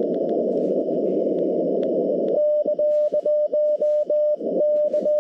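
Shortwave receiver hiss through a Xiegu G90's narrow CW filter. A little over two seconds in, Morse code begins: a single steady beep keyed on and off in dits and dahs, with the band noise coming back in the longer gaps.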